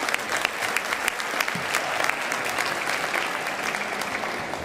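Audience applauding: many hands clapping, thinning out near the end.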